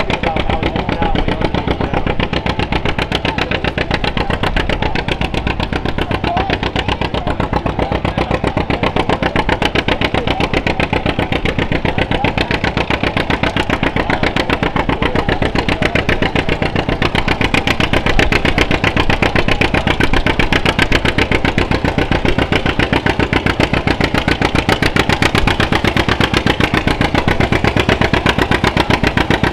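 Two-cylinder John Deere tractor engine running hard under full load while pulling a sled, its exhaust beat fast and even. It grows slightly louder about halfway through.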